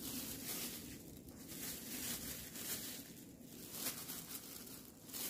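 Faint, irregular rustling and crinkling of thin plastic food-prep gloves as the hands handle and spread tuna over the rice.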